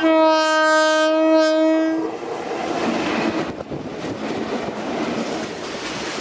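Indian Railways electric locomotive sounding its air horn in one steady single-note blast of about two seconds, then the clatter of the locomotive and its open freight wagons rolling past close by on the rails.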